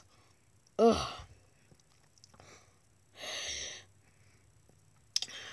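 A person's short voiced cry about a second in, then a breathy exhale, like a sigh, a couple of seconds later.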